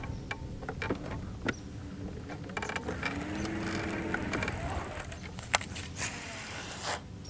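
A fishing reel being cranked as a lure is retrieved: a mechanical whirring and clicking with scattered ticks, thickest a few seconds in, and a brief low hum near the middle.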